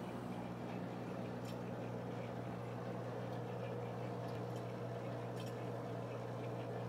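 Aquarium filter pump running with a steady low hum, with faint scattered watery ticks from the filter's water flow.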